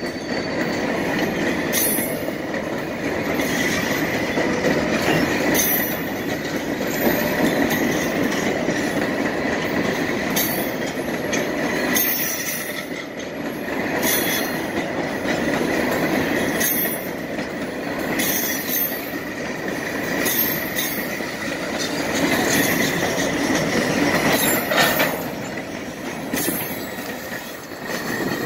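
A string of freight hopper cars rolling past, wheels clattering on the rails, with a thin steady squeal and scattered sharp clicks. It grows a little quieter near the end as the last cars pass.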